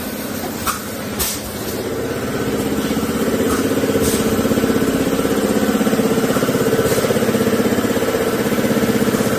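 High-pressure piston air compressor running steadily with a rapid even pulsing, growing louder in the first few seconds and then holding steady. Two short sharp clicks about a second in.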